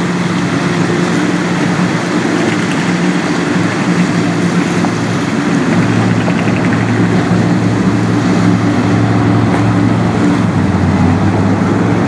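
Steady low drone of a ship's engine with several held tones, a deeper tone joining about six seconds in, over a hiss of wind and rushing water.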